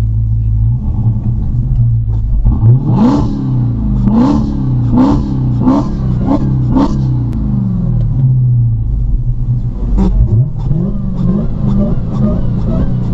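Dodge Hellcat's supercharged V8 idling with a deep, uneven burble, blipped five times in quick succession a few seconds in. It then settles back to idle before another sharp rev about ten seconds in and a run of smaller throttle blips.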